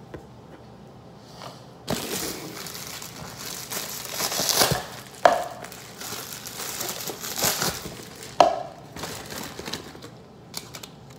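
Crinkling plastic as clear disposable plastic cups are pulled from their plastic sleeve, with two sharp plastic clacks about five and eight seconds in.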